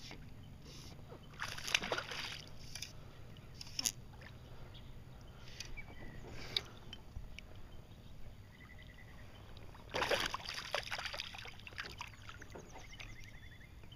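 Water splashing and sloshing right beside a kayak in a few separate bursts, the biggest and longest about ten seconds in.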